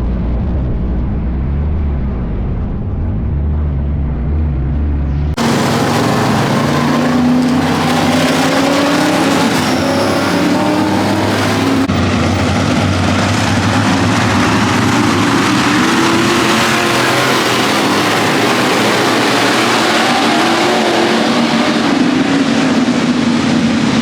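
Race car engine running. About five seconds in the sound changes abruptly to a louder, brighter engine note that rises and falls with the throttle.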